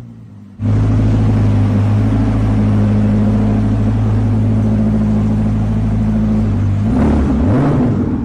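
A supercar engine bursts into life and holds a steady fast idle for several seconds, then its revs dip and rise briefly near the end.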